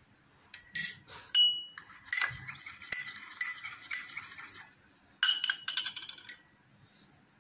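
Small drinking glass clinking: light knocks against the glass with short, bright ringing, in three bursts about a second in, from about two to four seconds in, and around five to six seconds in.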